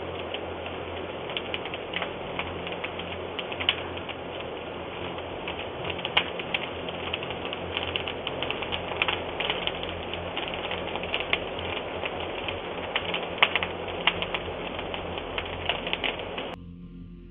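Fire crackling, a steady hiss dotted with many sharp pops and snaps, heard through a Ring doorbell camera's microphone with a low steady hum underneath. The sound drops away abruptly near the end.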